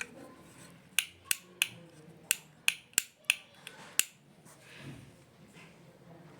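A plastic electrical switch being clicked on and off repeatedly: about eight sharp clicks over three seconds.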